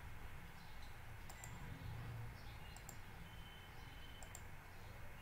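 Faint computer mouse clicks, in pairs about a second and a half apart, over a low steady hum.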